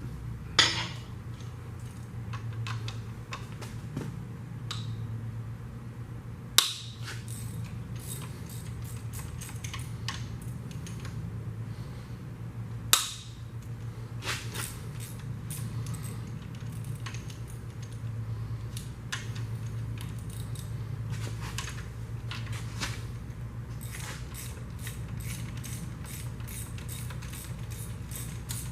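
Metal hand tools clinking and knocking on a 1950 Mercury flathead V8 being taken apart, with a few sharp knocks and a run of quick clicks near the end, over a steady low hum.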